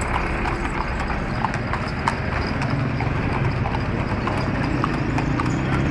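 Hooves of horses pulling two-wheeled carts clip-clopping on a paved road, with the low steady running of a passing motor engine that grows louder about halfway through.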